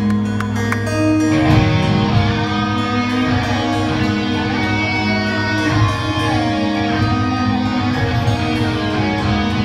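A progressive metal band playing live through a PA: acoustic guitar strummed over electric guitars and bass, with sustained notes and few sharp drum hits.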